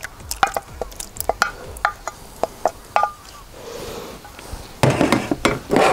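Thick goulash sliding out of a glass jar into a cast-iron Dutch oven, with a run of short sharp clicks and taps. In about the last second, a louder spell of a wooden spoon stirring the food in the pot.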